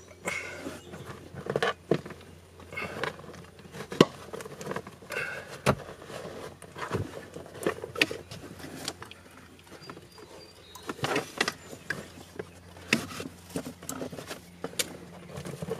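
Cables and plastic connectors being handled and plugged in under a car's dashboard: scattered rustling with light clicks and knocks, over a steady low hum.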